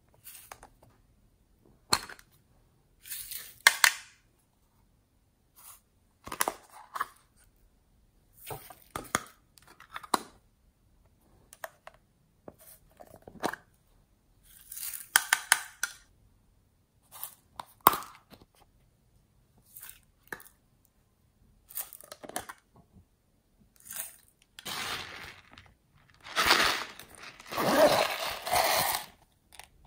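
Hands handling small plastic items and packaging: short crinkles, taps and rustles every second or two with silent gaps between. Near the end come longer, louder scratchy rasps.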